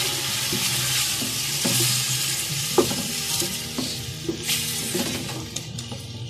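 Chicken pieces sizzling as they fry in oil with yogurt, garlic and whole spices, while a wooden spoon stirs and scrapes them around a metal pot with scattered knocks. The sizzle dies down near the end.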